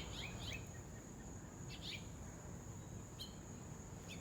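Small bird chirping: a quick cluster of short high falling chirps at the start, a couple more near the middle and one later. Under it runs a steady high insect drone.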